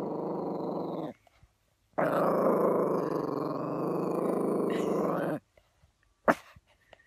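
Small black-and-tan dog growling in long, steady stretches: one that stops about a second in, then after a short pause a louder growl lasting about three and a half seconds. A single sharp click near the end.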